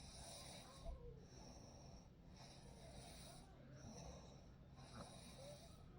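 Faint snoring and breathing of a sleeping person over a steady low hum.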